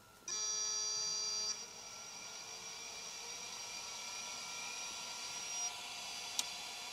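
Mac Classic power supply switched on without its motherboard, with the hard drive starting up: a loud multi-tone whine for about a second as the drive spins up, then a steady, quieter whine as it keeps spinning, with a single click near the end. The supply stays powered and keeps the drive running.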